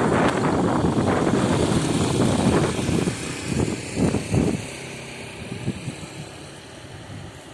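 Heavy-equipment diesel engine running with loud, rough noise that drops away about four and a half seconds in, leaving a quieter steady hum.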